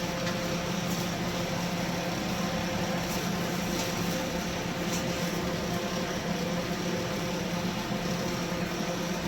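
A steady, unchanging mechanical drone with a constant low hum.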